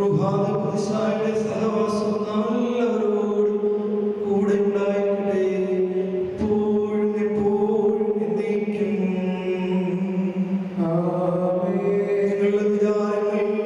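Liturgical chant of the Mass, sung in long held notes with a few short breaks between phrases, over a steady sustained tone beneath.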